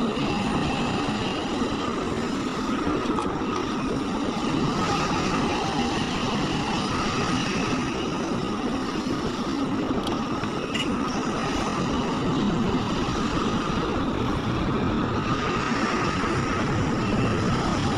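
Heavy diesel machinery running steadily, the engine of an excavator or dump truck working on earth-moving.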